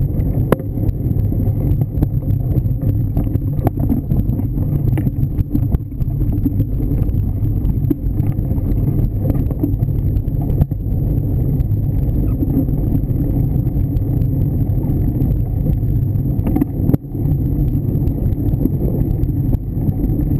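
Bicycle riding over a leaf-covered dirt trail, heard through a bike-mounted action camera: a loud, steady rumble of wind and ride vibration on the microphone, with scattered clicks and knocks from bumps.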